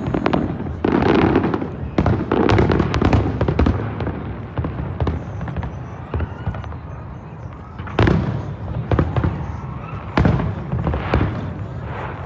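Aerial fireworks bursting, a string of sharp bangs and crackles with echoing tails. There is a short lull in the middle, then a loud bang about eight seconds in and several more in quick succession.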